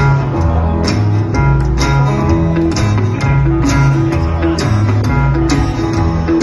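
A live honky-tonk band plays an instrumental intro with no singing: a steady beat, sharp drum hits and a bass line that moves from note to note.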